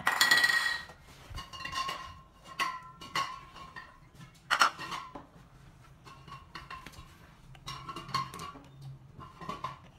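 A plate being handled, with a utensil clinking and knocking against it: a loud, ringing clatter at the start, then scattered clicks and knocks, the sharpest a little before halfway.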